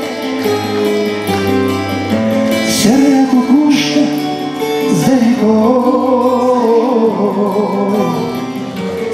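Live band music: a song with a sung melody over guitar, bass and keyboards.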